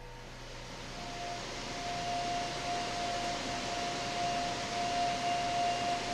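Steady industrial noise of a steel plant: an even hiss, growing louder over the first couple of seconds, with a steady whine coming in about a second in.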